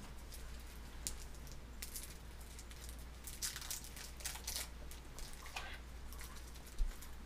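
Scattered soft clicks and smacks of a baby eating finger food, mouth and fingers working at a plastic high-chair tray, over a low steady hum.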